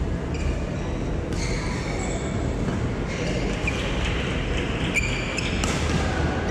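Indoor badminton hall ambience: a steady low rumble with high-pitched squeaks of court shoes on the court mat several times.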